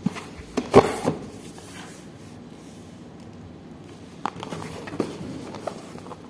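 A cardboard product box being handled, with a cluster of knocks and rustles about a second in and a few lighter clicks and scrapes later on.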